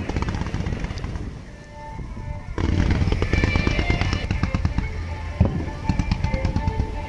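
A rapid fireworks barrage, with dense popping and crackling bangs. It thins out briefly, then comes back louder and denser about two and a half seconds in.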